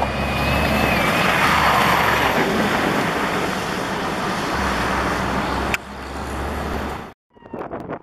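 Fire engine driving on a slushy, snowy road: engine hum under a steady rush of tyre and road noise. A faint siren wail trails off in the first second or so. The sound drops about six seconds in and stops abruptly about a second later.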